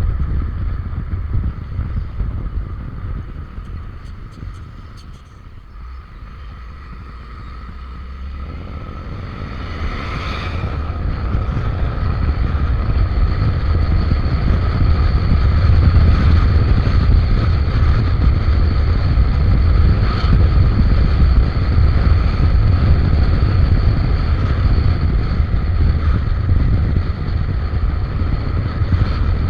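Wind buffeting the microphone over the running of a Suzuki Avenis 125 cc scooter on the road. The noise eases off a few seconds in, then builds back up and holds steady.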